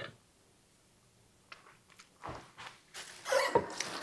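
Quiet mouth sounds of someone tasting a sugary glaze: a few faint clicks, then louder lip smacking in the last second.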